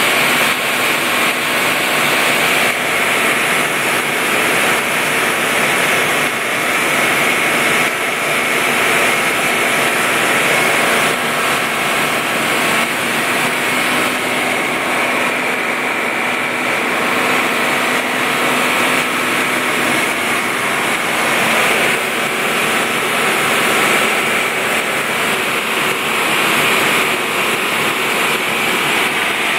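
Farm machinery running steadily: a constant engine-and-machine drone with a steady high whine, unchanging throughout.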